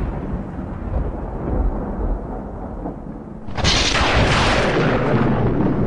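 Thunder rumbling low, then a sudden loud thunderclap about three and a half seconds in that keeps rolling.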